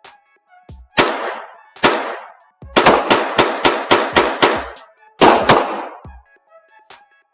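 Pistol shots: two single shots, then a quick string of about eight, then two more close together, each with a reverberating tail.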